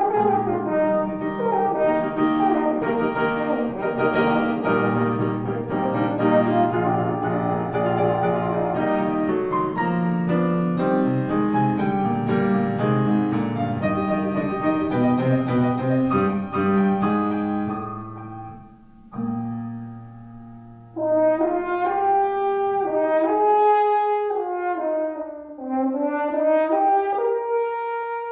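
French horn and piano playing a classical piece together. Near the end the piano drops out and the horn carries a melody on its own.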